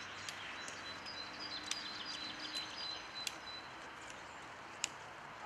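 Woodland ambience with a steady hiss. A small bird repeats a short high chirp several times a second, thinning out after about two seconds, and a few sharp clicks are scattered through.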